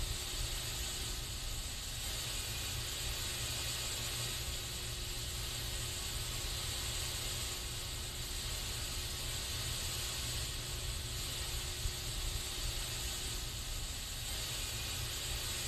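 Aerosol spray can hissing steadily without a break, with a low rumble underneath.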